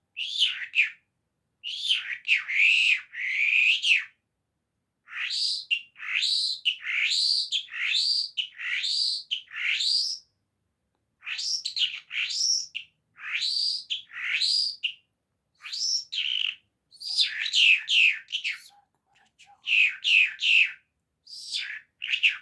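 A small songbird chirping: runs of short, quick rising notes, repeated in bursts with brief pauses between.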